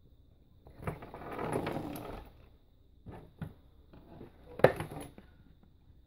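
Handling noise: a rustle lasting about a second and a half, then a few light clicks and knocks, with one sharp click, the loudest, about three-quarters of the way through.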